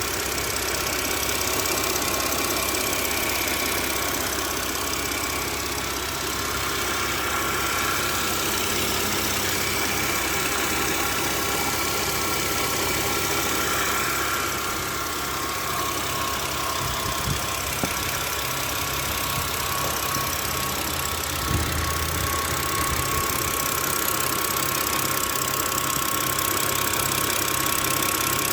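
BMW N52B25 inline-six engine idling steadily with a ticking from the valvetrain, which the owner puts down to worn hydraulic lifters.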